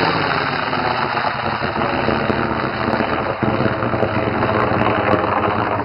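Nitrous-oxide hybrid rocket motor burning after ignition: a steady, loud rushing roar with no breaks.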